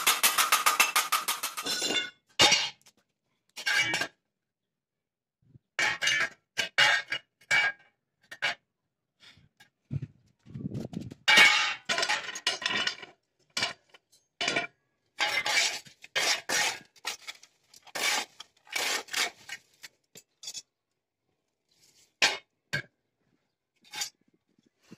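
A hammer striking rapidly on the folded edge of a galvanized steel sheet for about the first two seconds. Then a series of short, irregular scrapes and metallic clatters: a sheet-metal dustpan being scraped across the floor as rubbish is gathered into it.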